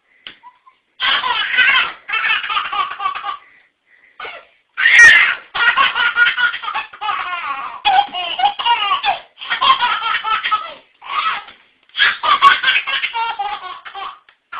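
A baby laughing in repeated high belly-laugh bouts, each a second or two long with short pauses between them.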